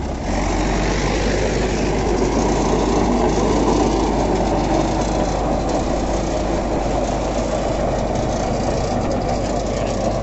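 HMT 5911 tractor's diesel engine running hard under load as it pulls a super seeder through paddy stubble, with the seeder's rotor churning the soil. Steady throughout, getting louder just after the start.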